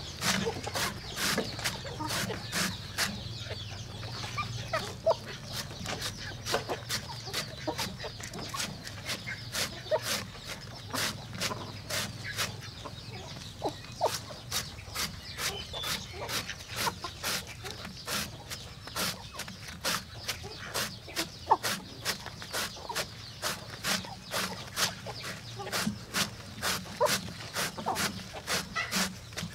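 Large knife chopping a banana stem into thin slices on a wooden log: a steady run of sharp chops, about two to three a second, with hens clucking softly between them.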